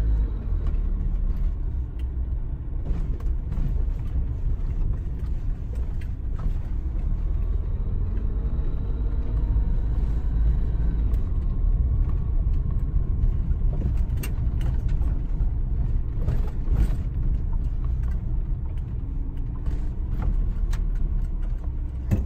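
Steady low engine and road rumble inside the cab of an Isuzu D-Max pickup driving on a rough, potholed lane, with occasional short knocks and rattles as it goes over bumps.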